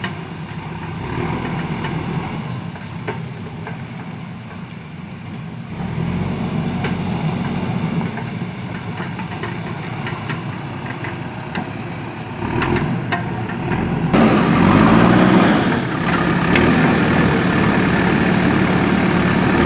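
JCB backhoe loader's diesel engine running steadily, with scattered sharp knocks and clanks from the working machine. Near the end it gets suddenly louder and the engine note rises and falls as it revs.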